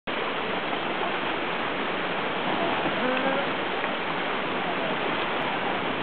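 Steady rush of water pouring over a small rocky waterfall into a shallow stream. Faint voices are heard in the middle.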